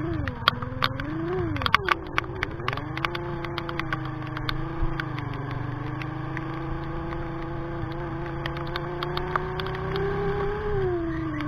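Sigma 250cc scooter's engine running under way, its drone rising and falling in pitch twice at the start, then holding steady and dropping again near the end. Sharp ticks of rain hitting are scattered over it, thickest in the first two seconds.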